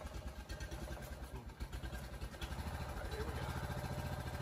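Small engine-driven hydraulic pump running steadily with a low pulsing rumble, powering the jacks that lift a settled brick wall on foundation piers. The rumble grows a little louder and steadier about two and a half seconds in.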